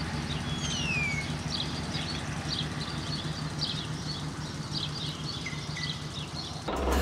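Small birds chirping over and over, with a couple of falling whistled calls, over a steady low engine hum. Music cuts in just before the end.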